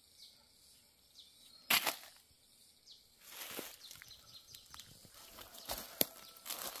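A single sharp chop of a blade into a bitter bamboo shoot, a little under two seconds in, followed by rustling of the shoot's sheaths and leaves with a couple of smaller knocks near the end.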